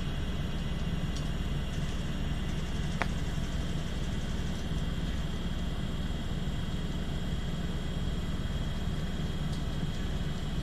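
Maxtor 7120AT hard drive and its old PC running during a seek test on the failing drive: a steady low hum with a high whine over it, and a single sharp head click about three seconds in.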